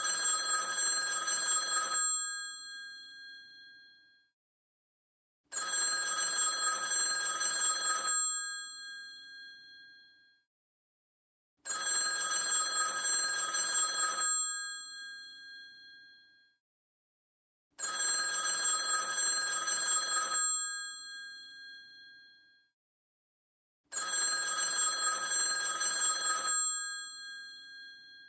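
Vintage telephone bell ringing in a regular cadence: five rings of about two and a half seconds each, one every six seconds, each ring dying away after the bell stops.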